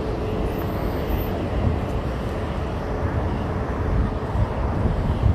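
City street traffic noise: a low rumble of passing vehicles, with a faint steady hum through the first few seconds.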